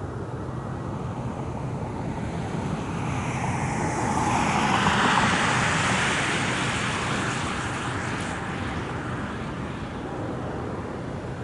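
Jet airliner passing, its engine noise swelling to a peak about five seconds in and then slowly fading, with a hiss that slides down in pitch as it goes by.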